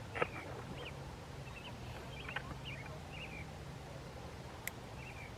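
Small birds chirping in short, repeated notes, with a faint steady low hum and a couple of brief sharp clicks.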